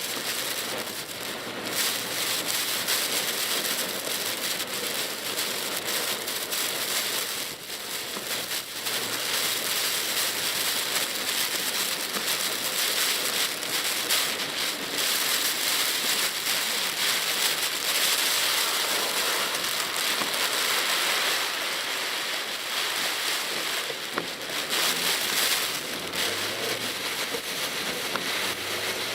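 Typhoon rain hitting a moving Mitsubishi Pajero Mini, with tyres hissing on the wet road, heard from inside the cab. It is a steady, dense hiss with a couple of brief lulls.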